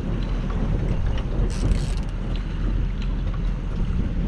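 Wind buffeting the microphone over the steady low rumble of a fishing boat's motor running, with a brief hiss about a second and a half in.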